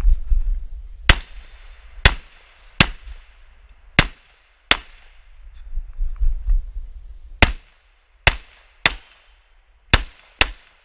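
Handgun shots, about ten in all, fired in quick strings of two or three roughly half a second to a second apart, each with a short fading echo. A low rumble of movement fills the gaps between the first shot and around the middle.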